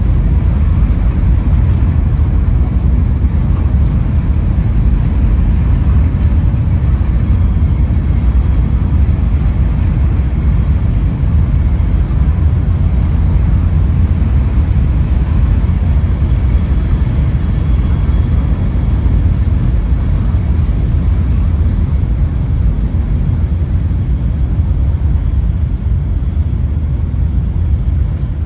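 Steady low rumble of a train in motion, heard from on board, holding an even level throughout.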